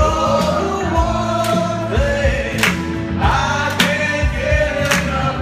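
A group of men singing a pop song along to a backing track with a steady drum beat.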